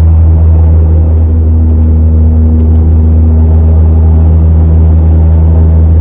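A car's tyres running over the yellow centre line on the road, a loud, steady low drone with a humming tone.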